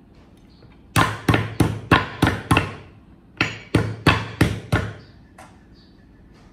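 A cleaver chopping meat on a round wooden chopping board: two quick runs of sharp chops, six and then five, about three a second.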